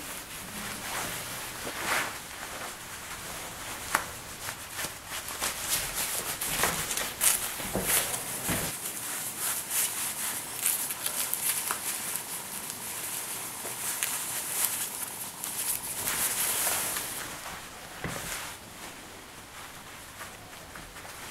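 Necktie fabric sliding and rubbing against a shirt collar and fingers close to the microphone: an uneven run of swishes, brushes and scratchy strokes as the tie is pulled through and tightened.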